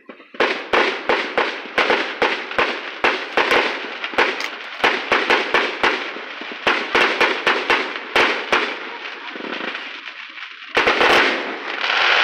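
Aerial fireworks going off in a quick run of sharp bangs, about three a second. Near the end comes a dense spell of crackling.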